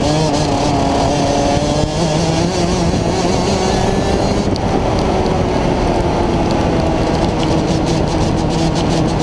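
Rotax Max DD2 125 cc two-stroke kart engine running at racing speed on track, its pitch rising and falling slightly. A continuous rushing noise of wind and wet-track spray on the onboard microphone runs under it.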